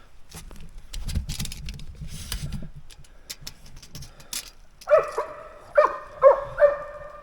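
A dog barking four times in quick succession, starting about five seconds in, after a couple of seconds of rustling and snapping underfoot in brush and leaves.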